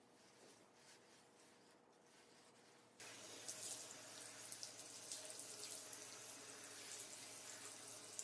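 Handheld shower sprayer running water onto a dog's wet coat during a rinse: a faint, steady hiss that starts suddenly about three seconds in, after near silence.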